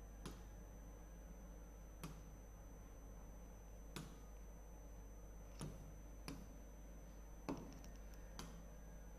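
Light taps of a finger and stylus on an interactive display screen, about seven separate taps spread out, the loudest near the end, over a faint low hum.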